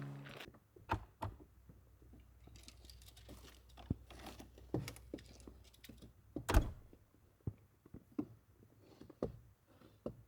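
Acoustic guitar music fading out at the start, then a scattering of small knocks and clicks in a quiet room, the loudest a thud about six and a half seconds in.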